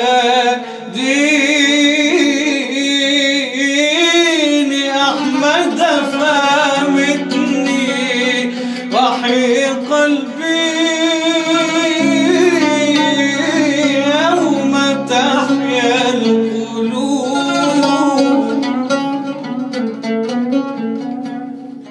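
Arabic devotional nasheed: a male munshid sings a long melismatic line over a low held drone. Plucked strings come in toward the end.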